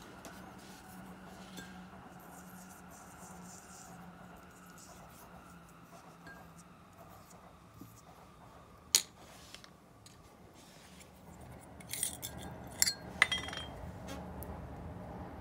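Small metal parts of a disassembled Abu Garcia Ambassadeur 5500 DA baitcasting reel clinking against each other and a hard container while being cleaned: one sharp click about nine seconds in, then a quick cluster of clinks near the end, over a faint steady hum.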